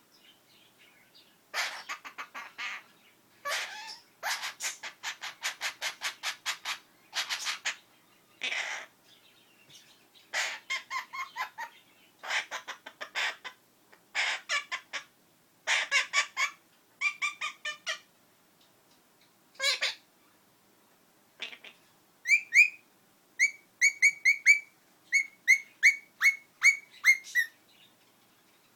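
Princess parrot (Princess of Wales parakeet) calling: runs of rapid, raspy chattering lasting a second or two each, then, from about two-thirds through, a string of short clear whistled notes, each dropping slightly in pitch at its end.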